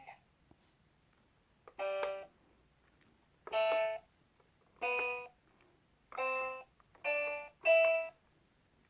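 Laugh and Learn electronic toy laptop playing six short electronic musical notes, each about half a second long, with brief pauses between them.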